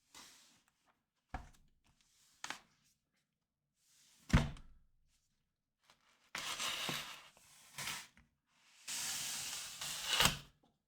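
Packaging being handled: a few light knocks, one solid thunk about four seconds in, then two stretches of paper or plastic rustling and tearing.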